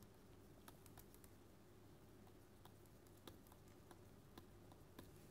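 Near silence with faint, irregular light taps and clicks of a stylus pen on a tablet screen as words are handwritten.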